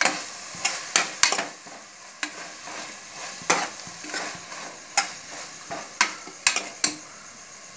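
Metal spoon stirring and scraping an onion-tomato masala frying in a pressure cooker, with irregular clinks and scrapes against the pan over a steady sizzle.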